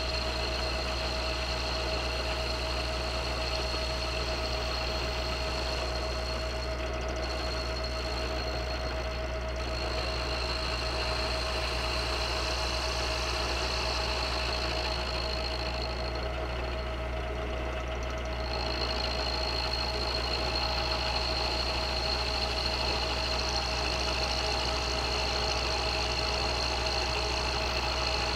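Milling machine running steadily with a high whine over a low hum, its end mill taking a light cleanup pass across a cast iron part. The whine drops away briefly about two-thirds of the way through, then comes back a little louder.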